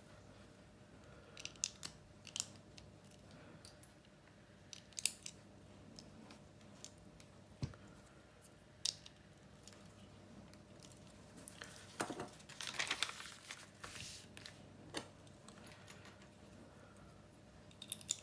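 Plastic LEGO bricks being handled and pressed together by hand: scattered sharp small clicks, with a longer stretch of rattling and rustling about twelve seconds in.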